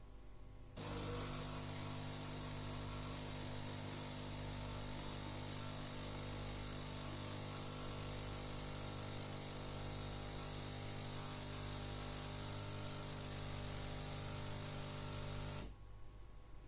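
De'Longhi Eletta Explore bean-to-cup coffee machine running with a steady electric hum. It starts abruptly about a second in and cuts off near the end.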